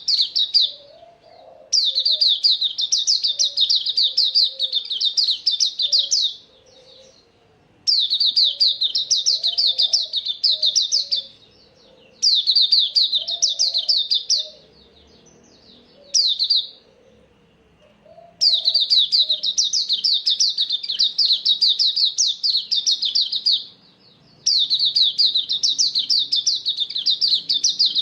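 Cage songbird called an auriventer singing long bursts of rapid, repeated high chirping notes. Each burst lasts several seconds and is followed by a pause of a second or two, and the pattern repeats about half a dozen times.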